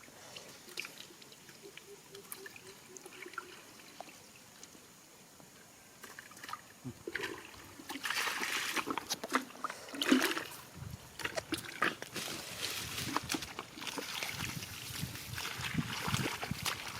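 Shallow rice-field water sloshing and splashing as someone wades and works through it by hand, in irregular bursts. It is faint at first and picks up about seven seconds in, loudest around ten seconds.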